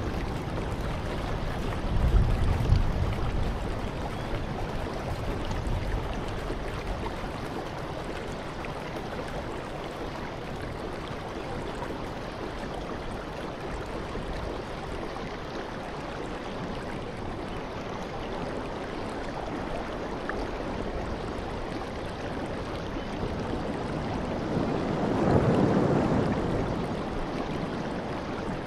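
Ocean surf breaking on a rocky shore: a steady wash of water noise, with a heavier low surge about two seconds in and a wave swelling louder near the end.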